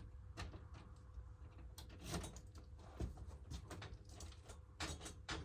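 Keys jingling and clicking as a key is pushed into and tried in a vending machine's door lock: a string of faint, irregular metallic clicks and rattles.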